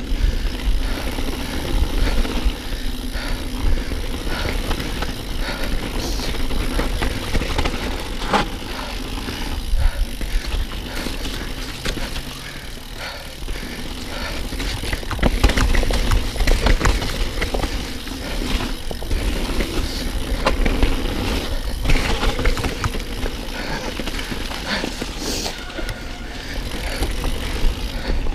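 Mountain bike ridden over rough trail: a steady low wind rumble on the camera microphone, with frequent knocks and rattles from the bike jolting over bumps.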